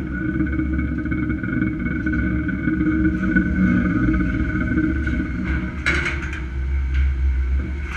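Steady low rumble, like wind and site machinery, under a faint steady whine, with one sharp metallic clank of corrugated steel deck sheets being handled about six seconds in.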